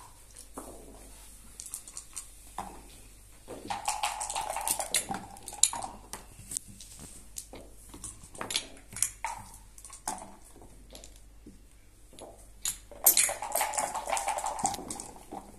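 Dice rattling in a backgammon dice cup, shaken twice (a few seconds in and again near the end), each shake ending with the dice clattering out onto the board. Between the shakes, scattered sharp clicks of checkers being picked up and set down on the wooden board.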